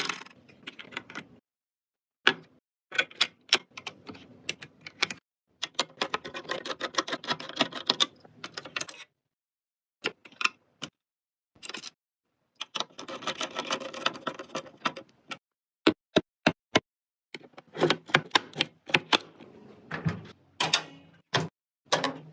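Sharp clicks and rattling from computer hardware being handled and fitted together during a PC build, in short bursts separated by several breaks of dead silence.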